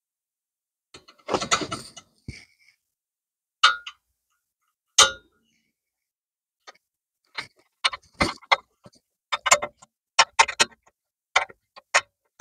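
Metal-on-metal clicks and clinks from a 7 mm hex key working the rear brake caliper guide pin bolts loose. There is a short rattling cluster about a second in, two single sharp clicks, then a run of irregular clicks over the last few seconds.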